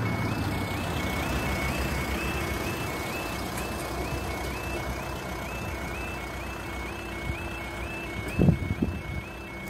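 UK level-crossing audible warning sounding steadily as a two-tone alarm, alternating between two high pitches, while the barriers come down. Under it a road vehicle's engine runs close by. About eight and a half seconds in come a loud low thump and a smaller second one.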